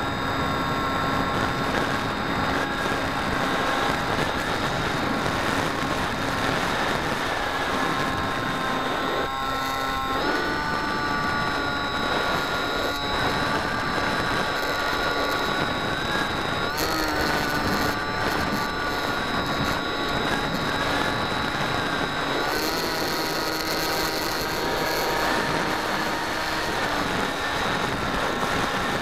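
Brushless electric motor and propeller of a Bixler 2 RC foam plane, heard from its onboard camera: a steady whine over rushing air, shifting in pitch a few times as the throttle changes.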